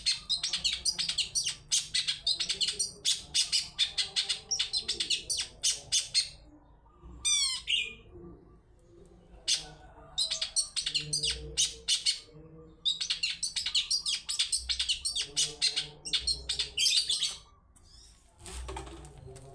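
Long-tailed shrike (cendet) calling in long bursts of rapid, sharp, high chattering notes with short pauses between them. About seven seconds in, a short run of quick falling whistles breaks in.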